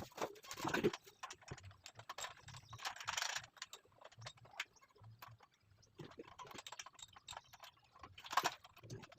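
Scattered clicks, knocks and a brief scrape as the parts of an angle grinder stand are handled and adjusted.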